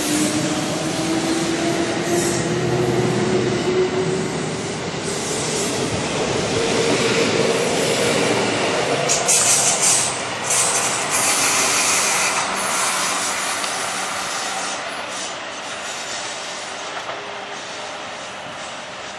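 Kintetsu electric trains on the rails: a steady running rumble with a tone rising in pitch over the first several seconds, then high-pitched wheel squeal in several bursts around the middle, after which the noise slowly fades.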